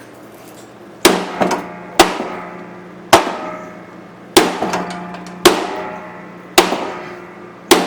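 Sledgehammer blows on the bent steel crankshaft of a Honda HRX217 lawnmower, seven strikes about once a second, each ringing out metallically. The blows are hammering the shaft straight.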